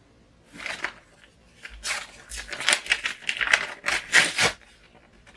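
Paper rustling and crinkling as a folded letter and paper inserts are handled and opened out, in a quick run of short crackles for about three seconds with a first brief rustle about half a second in.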